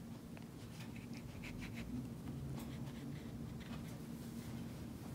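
Watercolour brush dabbing and stroking on damp paper: faint, short, scratchy touches, irregularly spaced, over a low steady hum.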